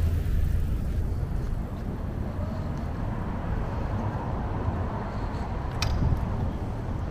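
City street ambience: a steady low rumble of traffic and outdoor noise, with one sharp click about six seconds in.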